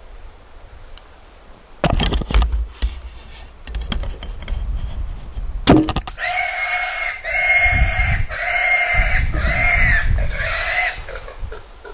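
Wild hog squealing in distress after being hit by an arrow: five loud, pitched squeals of about a second each, one after another, in the second half. A few sharp knocks and rustling come before them.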